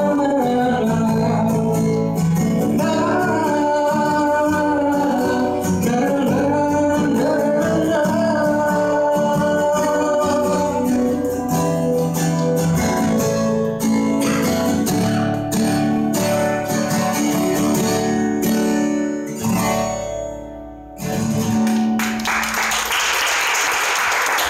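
A man singing while playing an acoustic guitar through a PA. The singing drops out about halfway and the guitar plays on. After a short pause and a final chord, audience applause starts near the end.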